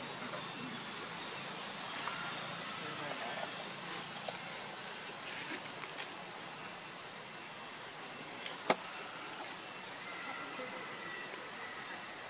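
Insects, likely crickets, keeping up a steady, high, even drone in the forest. A single sharp click stands out about two-thirds of the way through.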